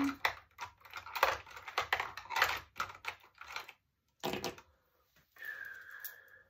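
Quick clicking and clattering of small hard plastic makeup items being handled and sorted through by hand, with a louder clatter about four seconds in and a thin squeak near the end.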